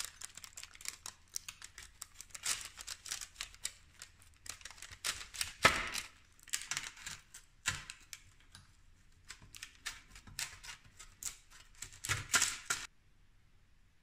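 Pizza cutter wheel rolling through a crisp-baked Flammkuchen crust on baking paper: a dense, uneven run of crunching and crackling clicks that stops shortly before the end.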